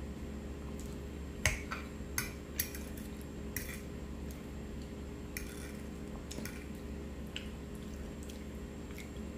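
Metal fork clinking and scraping against a dinner plate while eating: a few sharp clicks in the first four seconds, the loudest about a second and a half in, then fainter scattered ones, over a steady low hum.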